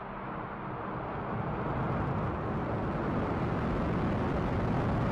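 Falcon 9 first stage's nine Merlin 1D rocket engines at liftoff: a dense, rumbling rush of rocket exhaust that grows steadily louder as the vehicle climbs.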